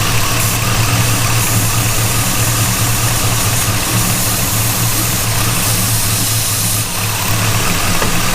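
LS V8 engine in a Chevy Caprice idling steadily while brake cleaner is sprayed around the intake to hunt a vacuum leak. The idle change it brings is very slight, which the owner takes as a sign of a vacuum leak near the intake.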